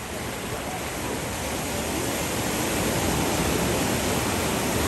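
Ocean surf washing onto the beach: a steady rushing hiss that swells a little louder over the first few seconds.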